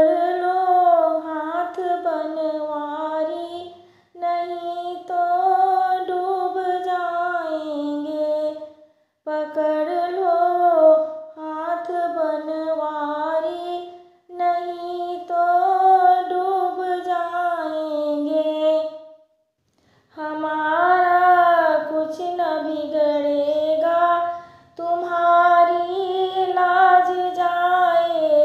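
A woman singing a Krishna bhajan, a Hindu devotional song, in phrases of about four to five seconds with short breaks between them.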